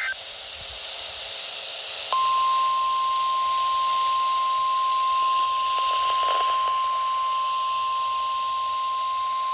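Weather radio receiver hissing, then about two seconds in the NOAA Weather Radio's steady single-pitch 1050 Hz warning alarm tone comes on and holds. This is the attention signal that announces an incoming warning, here a special marine warning.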